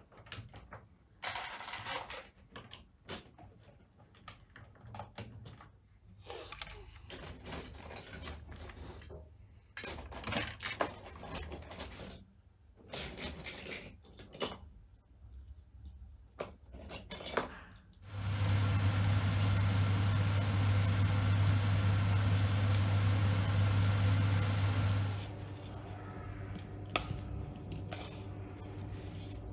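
Lego bricks clicking and clattering as a child rummages through them and snaps them together, many small plastic knocks. About two-thirds of the way through this gives way to a loud, steady hiss with a low hum for several seconds, which drops to a quieter steady noise near the end.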